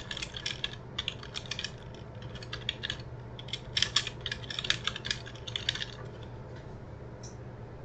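Computer keyboard typing in quick runs of keystrokes, which stop about six seconds in. A faint steady low hum lies underneath.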